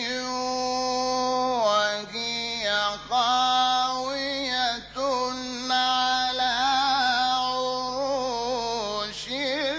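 A man reciting the Quran in the melodic mujawwad style: one voice holding long, ornamented notes that waver and glide, with a few short breaks between phrases.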